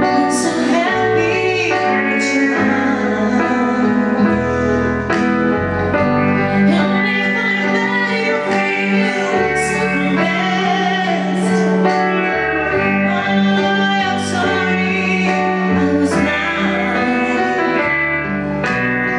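Woman singing live with a wavering vibrato on held notes, over instrumental accompaniment of sustained chords and a bass line that changes every second or two.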